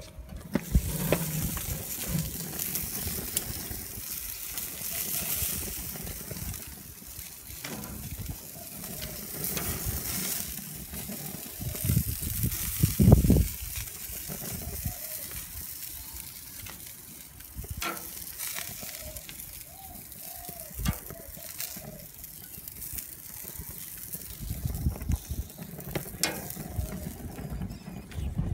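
Barbecue hotplate sizzling, grease and fat frying on the hot steel in a steady hiss. There are scattered knocks, and a louder low bump about thirteen seconds in.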